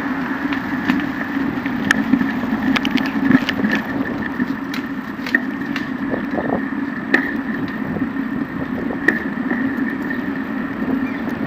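Bicycle riding over a square of concrete paving tiles: a steady rolling hum with scattered sharp clicks and rattles from the bike.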